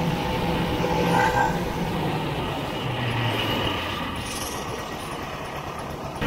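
Vintage snowmobile's two-stroke engine running steadily under way, heard close from the handlebars. It gradually gets quieter over the last few seconds.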